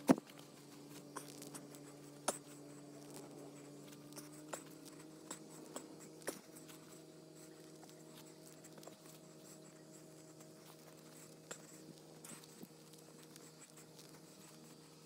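Scattered sharp taps and clicks, the loudest right at the start and a cluster in the middle, over a faint steady hum.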